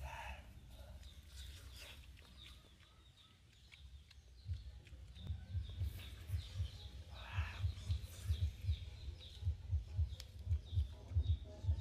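Small birds chirping in short repeated calls, one louder call about seven seconds in, over low, irregular thumping that starts about four seconds in.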